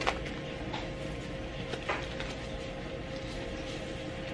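A few light clicks and taps from handling a tablet screen protector and its packaging, over a steady faint hum.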